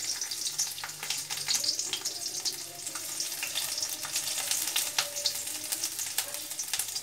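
Chopped garlic sizzling and crackling in hot extra virgin olive oil in a steel wok, stirred with a spatula.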